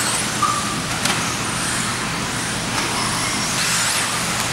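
Radio-controlled off-road buggies racing on a dirt track, their motors whining high and changing pitch as the cars rev and jump.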